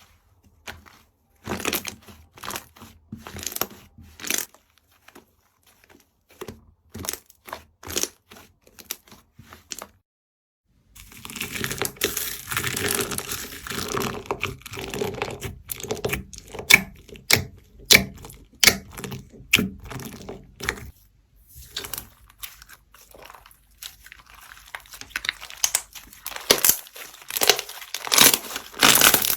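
Slime being squeezed and worked by hand close to the microphone, making sticky crackling and popping clicks. The clicks come in scattered bunches at first. After a brief silence they turn into dense, steady crackling for about ten seconds, then thin out to scattered pops and build up again near the end.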